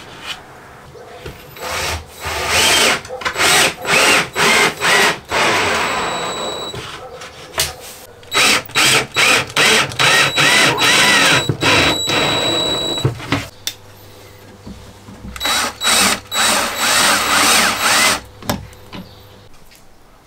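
Cordless drill driver driving wood screws into chipboard cabinet panels in three runs. Each run opens with short, quick trigger pulses and ends in a longer steady spin as the screw goes home.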